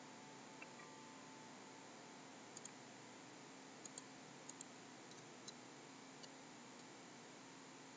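Faint clicks of a computer mouse, several in quick pairs, over a low steady hiss.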